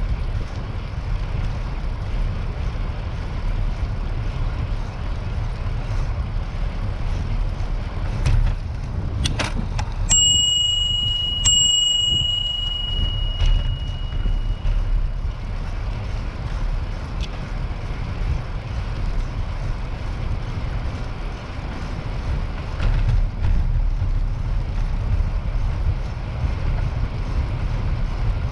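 Steady wind rumble on the microphone of a bicycle in motion. About ten seconds in, a bicycle bell rings twice, about a second and a half apart, its clear tone ringing on for a few seconds.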